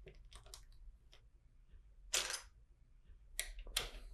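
Plastic LEGO bricks being handled: faint clicks and rattles as pieces are picked out and fitted, with a brief louder rattle about two seconds in and a cluster of clicks near the end.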